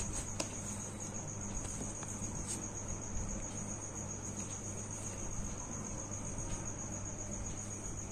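A cricket trilling steadily, one high-pitched pulsing tone, over a low steady hum, with a few faint clicks.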